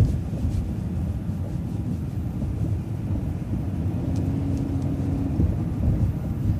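Road and engine noise of a moving vehicle heard from inside: a steady low rumble, with a brief faint steady hum about four seconds in.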